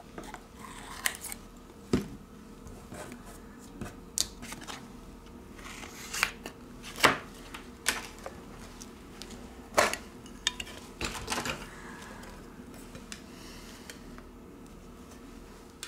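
Handling noise of small tools and phone parts on a work surface: scattered sharp taps and clicks, the loudest about seven and ten seconds in, with brief scraping, over a faint steady hum.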